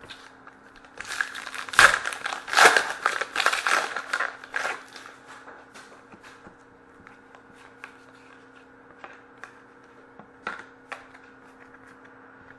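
Plastic or foil trading-card pack wrapper being torn and crinkled, a crackly burst lasting about four seconds. Scattered light clicks of cards being handled follow.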